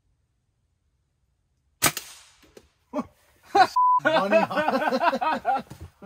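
A single sharp gunshot about two seconds in, fired at a can target, followed about two seconds later by a brief beep and a voice shouting in excitement.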